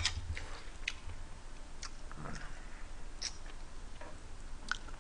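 A man chewing a mouthful of spicy rice cakes and fried chicken, with a few light, sharp clicks scattered through.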